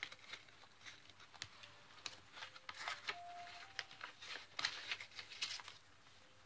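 Faint rustling and soft crinkling of paper as a foldout is folded back and tucked into a pocket of a handmade journal, with scattered light ticks of paper and fingers against the pages.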